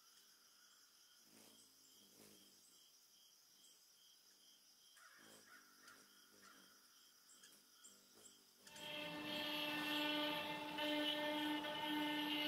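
CNC router spindle cutting mahogany with its bit, coming in suddenly about two-thirds of the way through as a loud steady whine with a low hum under it. Before that, only faint, quiet sounds.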